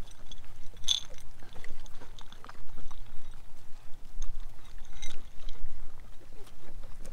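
Great Pyrenees puppies eating dry puppy kibble from a bowl: scattered small clicks and smacking, with little crunching because they are mostly swallowing it whole. Two brief high chirps come about a second in and about five seconds in.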